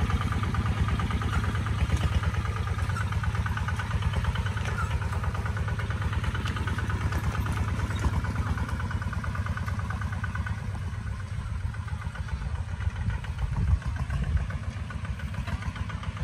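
Kubota ZT155 single-cylinder diesel engine of a two-wheel walking tractor running under load as it pulls a plough through the soil, with a fast, even beat of firing strokes.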